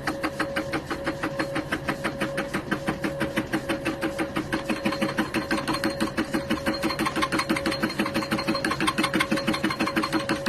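Metal lathe running, a steady machine hum with a regular rhythmic pulse of about five or six beats a second.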